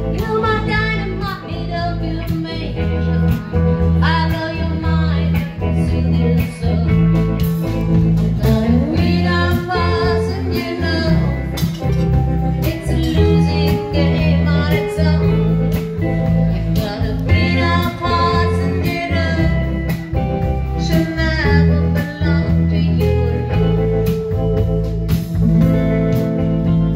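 Live rockabilly band playing: upright double bass, electric guitar and drum kit, with a sung vocal line over a steady beat.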